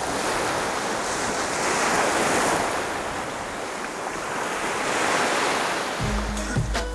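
Sea surf breaking and washing onto a beach, a steady rush of noise that swells twice. About six seconds in, music with a bass note and a beat comes in.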